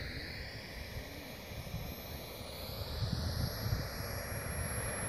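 Wren 100 model jet turbine on a radio-controlled Blanik glider as it comes in to land: a high whine that slides down in pitch, with a burst of low rumble about three seconds in.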